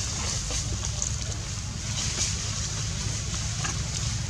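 Steady outdoor background noise: a low rumble with an even hiss above it.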